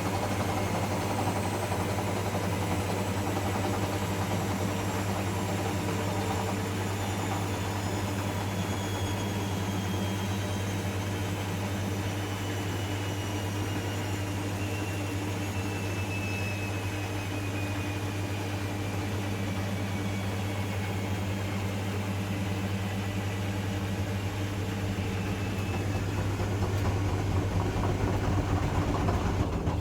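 Zanussi ZE 16 washing machine spinning at high speed: a steady motor drone with a thin whine above it that slowly falls in pitch.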